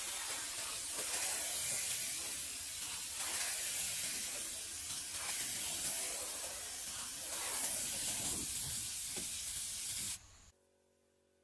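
Air-powered gravity-feed spray gun hissing steadily as it sprays a protective wood finish onto plank siding; the hiss cuts off about ten seconds in as the trigger is released.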